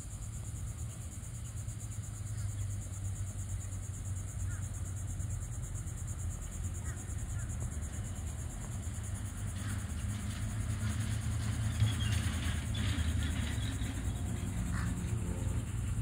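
Outdoor ambience: a steady high insect chorus over a continuous low rumble, slightly busier in the second half.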